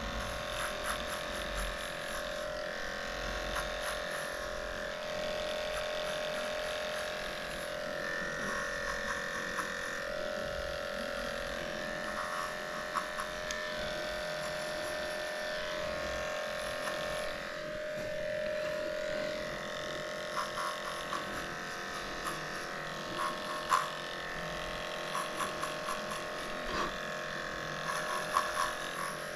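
Cordless Heiniger dog clipper running with a steady high-pitched hum while trimming the hair between a dog's paw pads, with scattered small ticks as the blade works over the pads.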